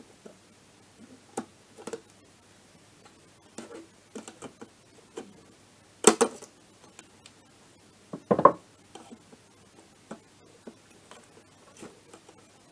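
Small metal clicks and taps of hand work on a scooter engine's crankcase as a circlip is fitted onto the crankshaft, with two louder knocks about six and eight seconds in.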